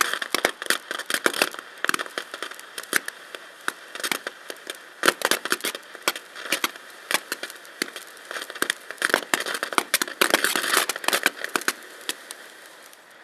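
Ground fountain firework spraying sparks with a dense, irregular crackle of sharp pops, thinning out near the end.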